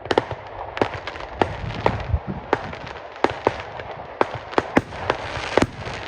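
Fireworks display going off: about a dozen sharp bangs and cracks at irregular intervals, over a continuous rushing noise between them.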